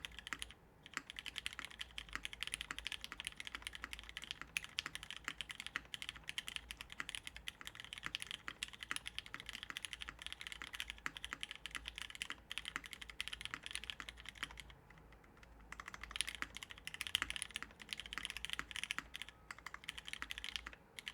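Fast, continuous typing on a top-mounted custom mechanical keyboard with lubed Cherry Hyperglide MX Black linear switches, an aluminium plate and GMK keycaps: a dense stream of keystrokes that stops for about a second roughly three-quarters of the way through, then resumes.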